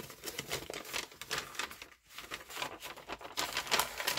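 Old paper rustling and crinkling as hands open a vintage sewing-pattern envelope and pull the folded pattern out of it. The crackling comes in two stretches with a short pause near the middle.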